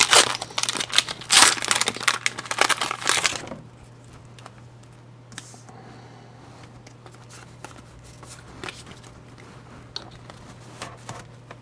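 Foil Pokémon trading-card booster pack wrapper being torn open and crinkled, stopping about three and a half seconds in. After that only faint, scattered clicks of the cards being handled.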